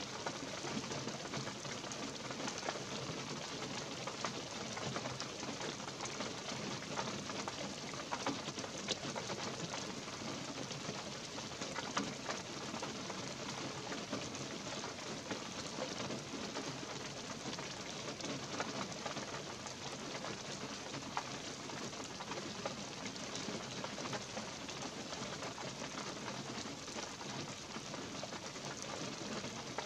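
Light rain falling steadily in a pine forest: an even hiss with scattered ticks of single drops.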